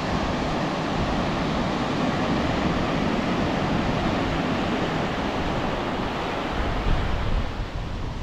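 Steady wash of surf on the beach. Gusty low rumbles of wind on the microphone come in near the end.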